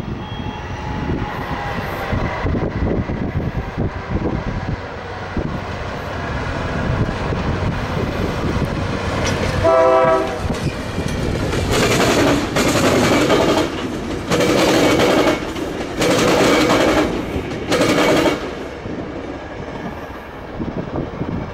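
Tri-Rail commuter train running past on the tracks with a steady rumble, sounding its horn: a short toot about ten seconds in, then four blasts, the last one short.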